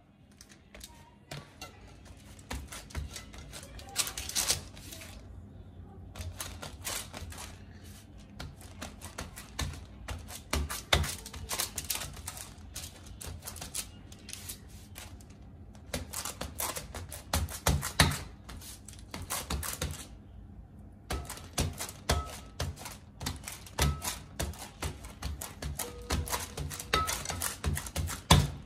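Fingertips pressing and patting soft roht dough flat on parchment paper in a round baking pan: quick, irregular light taps in runs, broken by short pauses, with a few louder knocks.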